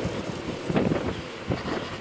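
Gusty wind buffeting the camera microphone, coming in uneven thumps of low rumble.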